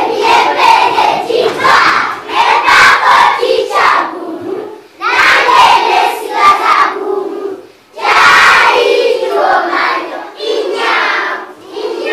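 A large group of young schoolchildren singing and chanting an action song loudly in unison, in shouted phrases with brief breaks about five and eight seconds in.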